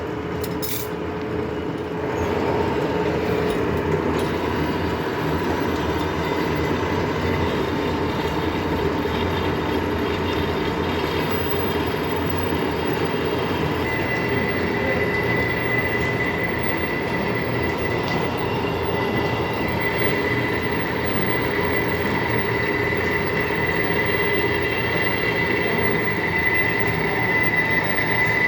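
Metal lathe running through a turning cut, a steady machine noise with a metallic whine from the cutting tool on the spinning workpiece. A higher-pitched whine comes in about halfway through.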